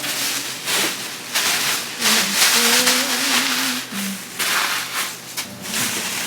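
Plastic grocery bags and food packaging rustling and crinkling in repeated bursts as groceries are handled and unpacked.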